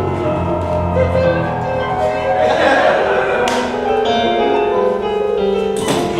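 Electronic keyboard played live, holding sustained chords and notes, with a couple of short knocks or clatters over it, about three and a half seconds in and near the end.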